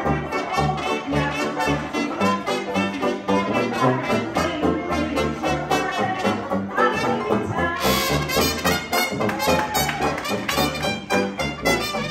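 Small hot-jazz band playing an instrumental chorus: a trumpet carries the lead over a steady walking bass line. Cymbal strokes join about two-thirds of the way through.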